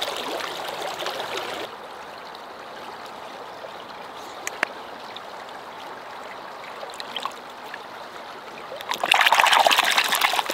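Creek water gurgling as a collapsible bucket is dipped in to fill. After a cut, a quieter stretch with a couple of small clicks, then, about nine seconds in, loud splashing as a hand swishes the water in the bucket to stir in a little soap.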